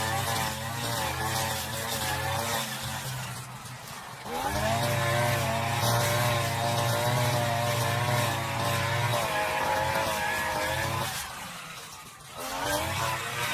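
Brush cutter engine running at high revs with a wavering pitch. Twice it drops back to a lower speed, then revs up again.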